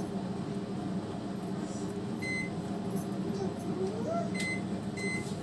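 Whirlpool MagiCook microwave oven's keypad beeping as its buttons are pressed to set the cooking time: three short high beeps, the first about two seconds in and two close together near the end, over a steady low hum.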